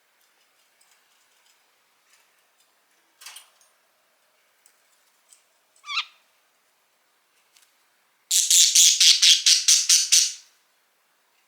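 Budgerigar calling: a short chirp about three seconds in and another near six seconds, then a loud rapid run of about ten harsh chirps, some five a second, for two seconds near the end.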